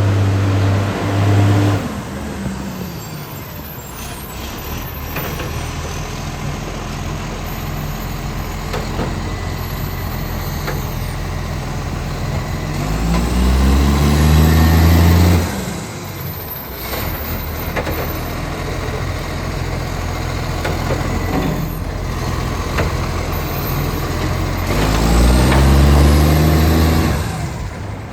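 ACCO garbage truck's diesel engine, which has an exhaust leak, running fast-idle, then twice revving up and holding high for a couple of seconds, about halfway through and near the end, before dropping back sharply to idle.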